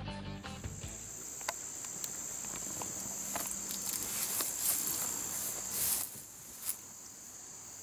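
Steady high-pitched chorus of field insects, with scattered light clicks and rustling as gear is handled at an open pickup door.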